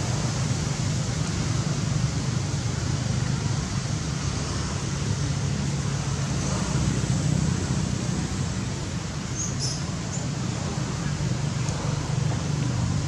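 Steady outdoor background noise: a low, even rumble under a hiss, like distant traffic.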